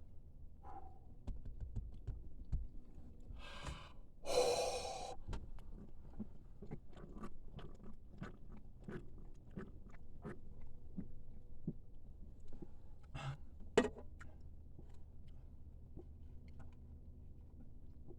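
A man chugging a can of Sprite: a short hissing burst about four seconds in, then a long run of small, regular gulping swallows, ending with a sharp breath or gasp about fourteen seconds in.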